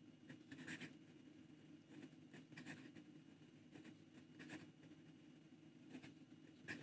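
Faint, scattered scratches of a Pilot Explorer fountain pen's thin medium nib moving across notebook paper in quick cursive strokes. The nib is dry-writing with noticeable feedback: not glassy-smooth, but not scratchy either.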